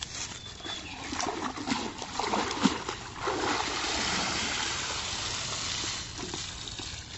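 Splashing as a woven basket is plunged and swirled in pond water, then water pouring and draining out of the lifted basket in a steady rush for a few seconds before it tails off.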